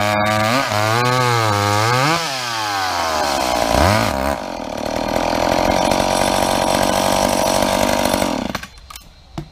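Old two-stroke chainsaw bucking a log. Its engine pitch swings up and down for the first couple of seconds, then holds at a steady high speed for about four seconds while cutting, and drops away sharply near the end.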